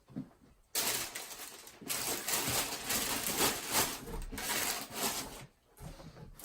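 Packaging rustling and crinkling as it is handled, a dense crackly noise that starts suddenly about a second in and stops about a second before the end.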